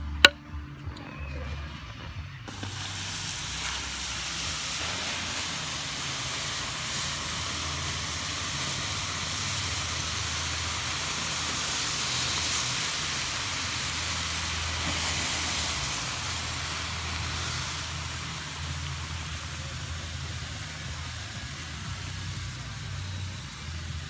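A sharp click, then campfire embers hissing and sizzling as water is poured over them to put the fire out, starting about two seconds in and easing off slightly near the end.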